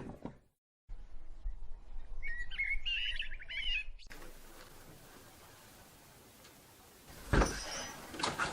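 A small bird chirping in a quick, rattling run of notes over a low outdoor rumble. After a sudden cut to faint room tone, there is a single thump near the end.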